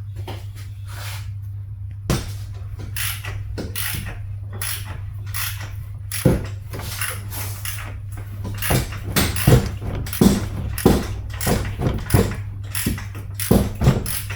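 Irregular metallic clicks, clanks and knocks of hand tools and engine parts being handled while the cylinder head is taken off an engine, growing busier and louder about halfway through, over a steady low hum.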